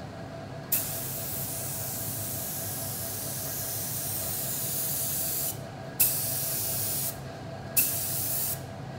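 Air-fed HVLP spray gun (DeVilbiss SRi Pro Lite) hissing as its trigger is pulled to spray leather paint. There is one long pass of about five seconds, then two short bursts of about a second each, each beginning with a brief louder puff of air. A steady low hum runs underneath.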